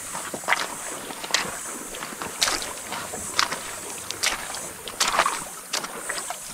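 Shallow river water splashing and sloshing in irregular strokes, about one or two a second, over a steady high hiss.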